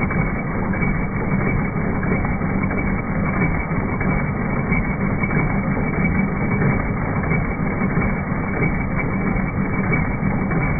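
BESTSEW B-3620 15-needle embroidery machine stitching: a fast, steady mechanical clatter of the needle bar over a low hum.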